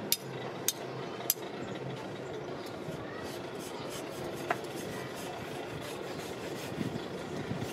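A metal hand tool taps sharply three times against a sand mold in the first second and a half, then steady scraping and rubbing follow as two hand tools dig through the packed molding sand of a smoking aluminum casting mold.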